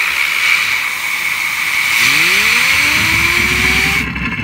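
Compressed-air blow gun hissing loudly as it blasts a fidget spinner. About two seconds in, a whine rises in pitch and levels off as the spinner speeds up; the air cuts off near the end, leaving the spinner whirring.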